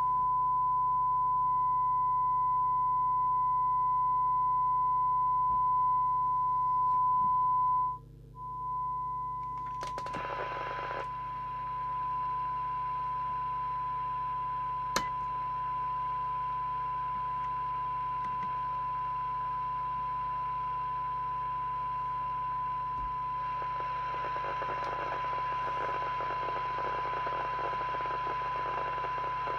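A steady, single-pitched test tone from the President Walker ASC CB radio's speaker, demodulated from a signal generator's signal while an IF coil is tuned for maximum audio level. The tone cuts out for a moment about eight seconds in. A burst of hiss comes near ten seconds, a single click comes around fifteen seconds, and hiss rises under the tone from about twenty-four seconds on.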